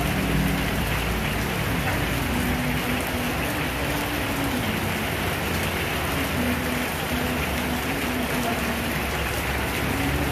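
Heavy tropical rain pouring down steadily on the wet street and shelter, an even, unbroken hiss.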